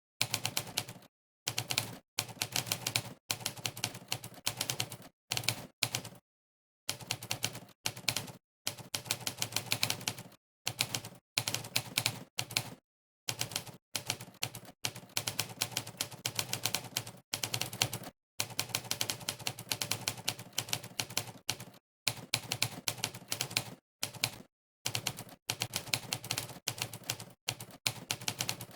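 Monkeytype's typewriter keystroke sound effect, one click per key, during fast typing: rapid runs of clicks broken by short gaps of dead silence. The clicks begin right at the start, after silence.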